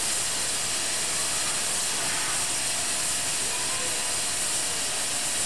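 Steady hiss of steam from a standing Victorian Railways R class 4-6-4 steam locomotive, R707.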